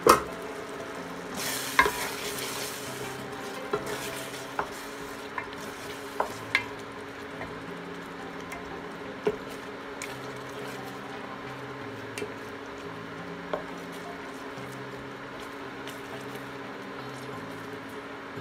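Wooden spoon stirring simmering ground-beef chili in a stainless steel pot, the sauce sizzling steadily, with scattered knocks of the spoon against the pot. The loudest knock comes right at the start, and a brighter hiss rises briefly about two seconds in.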